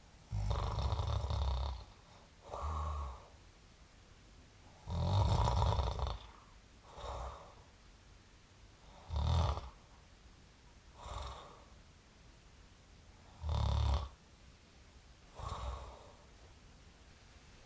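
A person snoring in sleep: a loud snore followed by a shorter, softer one, the pair repeating about every four seconds.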